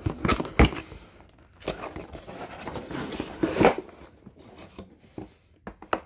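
Cardboard and packing material rustling and scraping as a shipping box is unpacked and a knife's cardboard retail box is pulled out, with sharp knocks and clicks and a longer rustle in the middle.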